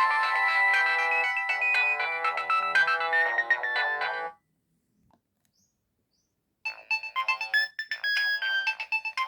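Mobile phone Nokia ringtones: a many-note electronic melody plays and stops suddenly about four seconds in. After a couple of seconds of silence, another ringtone melody starts.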